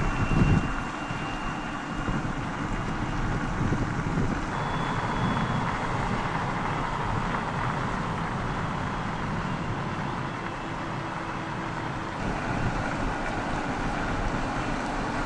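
Volvo Recharge concept car driving at speed: a steady rush of tyre and wind noise with no engine note.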